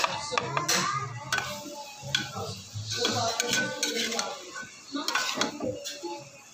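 Metal spatula scraping and clinking against a steel plate and aluminium pot as okra and sliced onions are pushed into the masala, then stirred in the pot in a run of short scrapes and knocks.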